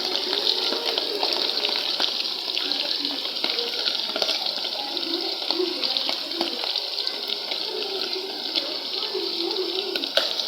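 Liver and spring onions frying in hot groundnut oil in a pot: a steady sizzle with small crackles all through.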